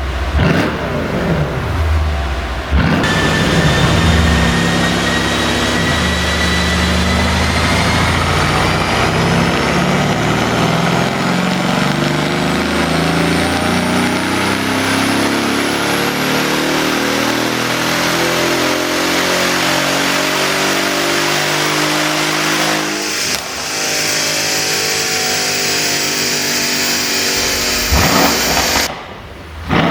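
Mercedes-AMG S63's twin-turbo V8 with a tuned exhaust, revved in short blips at first, then running under load with its pitch stepping up and down. A thin high whine climbs slowly through most of it, and there is a sharp crack near the end.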